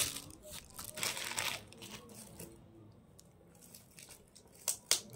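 Clear plastic gift wrap crinkling and rustling as it is handled, loudest in the first second and a half, then fainter rustles and two short sharp crackles near the end.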